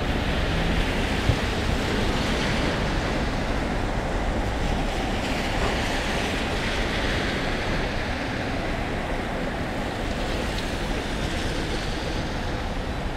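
Steady hiss of rain falling, mixed with traffic on wet city streets, with a single short knock about a second in.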